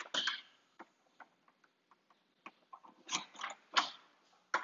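Clicks and small metallic ticks of a newly installed door knob and latch being worked: a couple of clicks at the start, scattered light ticks, then a louder run of clicks about three seconds in.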